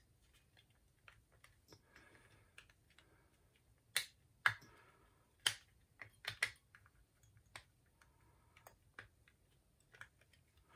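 Small hard-plastic clicks and taps from the casing of a caravan motor mover remote control being handled and pressed together, with a cluster of sharper clicks in the middle.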